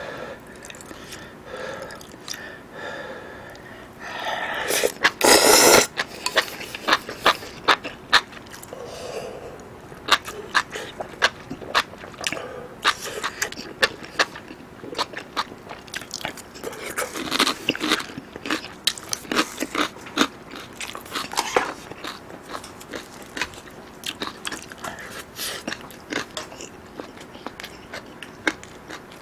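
Close-miked mukbang eating sounds: chewing of beef and mushrooms from a hot pot, a loud wet slurp about five seconds in, then a long run of crisp crunching bites of kkakdugi (cubed radish kimchi).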